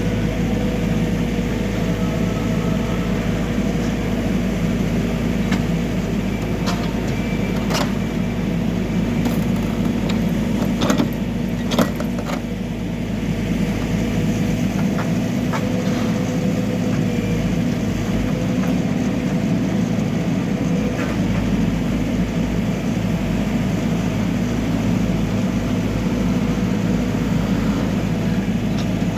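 Backhoe loader's diesel engine running steadily, with a few sharp metallic knocks about eight and twelve seconds in.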